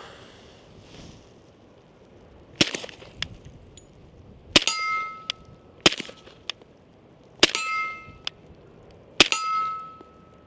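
Five suppressed shots from an FNX-45 Tactical .45 ACP pistol with a YHM Sidewinder suppressor, fired one to two seconds apart. Several shots are followed by a ringing metallic clang lasting about half a second.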